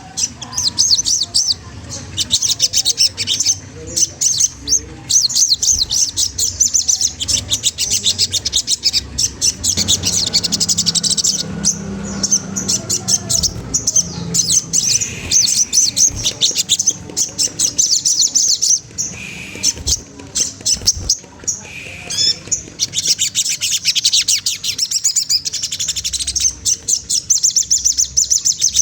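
Sogon trotol bird singing a long, rapid, high-pitched chattering trill of quickly repeated notes, with a few short breaks near the middle. It is the challenging song used to provoke rival birds into singing.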